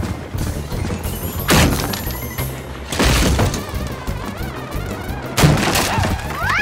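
Cartoon soundtrack: music with a steady bass line, broken by three heavy crashing thuds that serve as sound effects for a wooden cart piled with pumpkins racing along.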